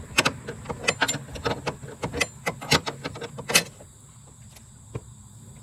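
Quick, irregular metallic clicks and clinks of a hand wrench and metal parts being worked on the torque mount bolt, stopping about three and a half seconds in.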